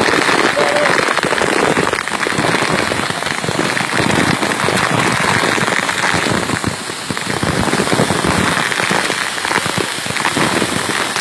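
Waterfall spray and falling water making a loud, dense, steady rush, with many water drops striking the phone's microphone as sharp ticks.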